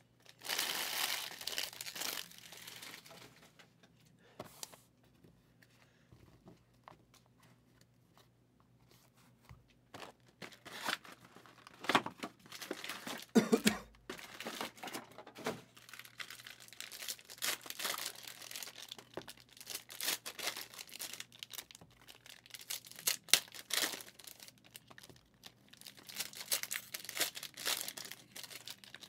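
Foil wrappers of Mosaic football card packs being crinkled and torn, with cards being handled, in irregular bursts. There is a quieter lull of several seconds early on, and a soft thump about 13 seconds in.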